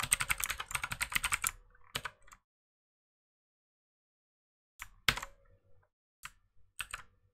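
Typing on a computer keyboard: a quick run of keystrokes for the first second and a half, then, after a pause, a few single clicks near the end, one of them louder.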